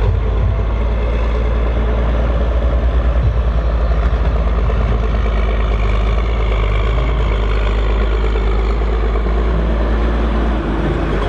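Case IH Magnum 7230's six-cylinder diesel engine running loud and steady under heavy load as the tractor pulls a weighted sledge.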